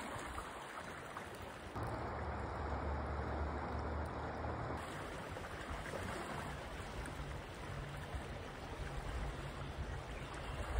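Steady rush of flowing shallow river water. A low wind rumble on the microphone comes in about two seconds in and eases off a few seconds later.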